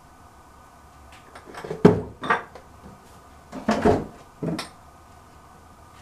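Small hard objects knocking and clattering as they are rummaged through and handled, in two bursts about two and four seconds in.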